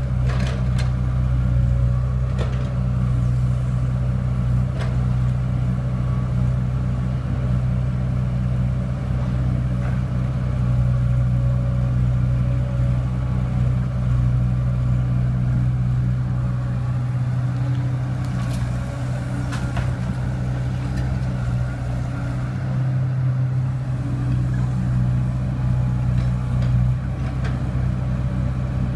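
Hydraulic excavator's diesel engine running steadily under load while digging and loading soil into a dump truck, with occasional knocks and clanks, a few near the start and a cluster about two-thirds of the way through.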